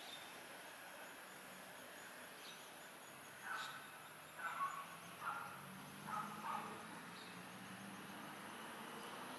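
A quick series of about six short bird calls, some in pairs, starting about a third of the way in and lasting about three seconds, over a faint steady background hiss.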